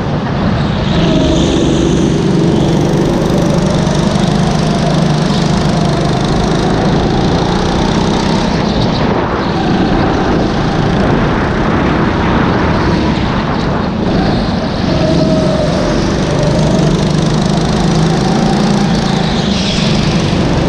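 Go-kart engine running hard, heard from on board the kart, its pitch rising and falling through the run.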